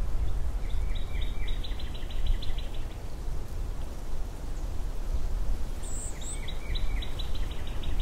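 Wind blowing steadily with a heavy low rumble. A songbird sings a rapid trill of repeated high notes twice, about a second in and again near the end, with a short, very high chirp about six seconds in.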